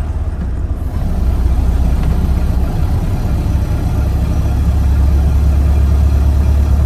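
1931 Ford Model A's four-cylinder flathead engine running with a steady low rumble.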